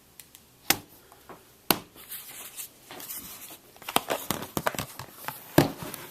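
Hands handling a small plastic-cased netbook: three sharp clacks, about a second in, about two seconds in and near the end, with plastic crinkling and rustling between them from about two seconds on.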